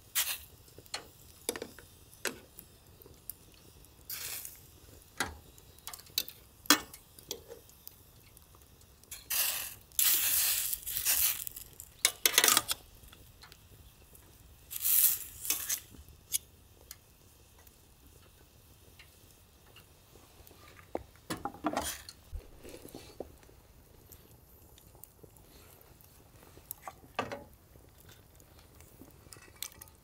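Pots, dishes and cooking utensils clinking and knocking at irregular intervals, with a few longer bursts of clatter.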